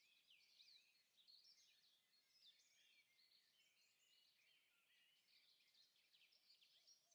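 Faint birdsong: many short chirps and quick whistled notes from several birds at once.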